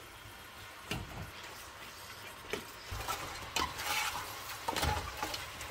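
Raw chicken pieces being stirred and turned in a hot nonstick pot of sautéing onions and butter with a plastic spoon: scrapes and knocks of the spoon against the pot over a faint sizzle as the chicken starts to sear. The stirring gets busier about halfway through.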